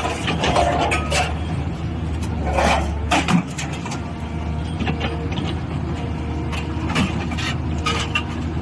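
Small alligator scrap-metal shear running: a steady motor hum with scattered clanks and knocks of metal.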